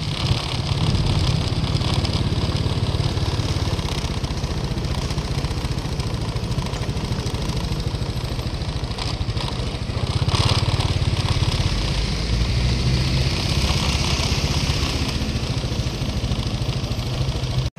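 Motorcycle engine running as it is ridden slowly, with wind noise on the microphone; the engine gets louder for a moment about ten seconds in.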